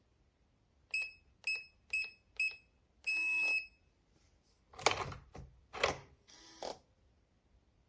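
IU-40 fingerprint door lock keypad beeping at four quick key presses, then one longer beep, followed by a few louder mechanical clacks and rattles.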